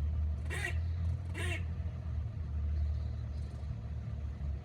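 Squirrel giving two short, sharp calls about a second apart, over a steady low rumble.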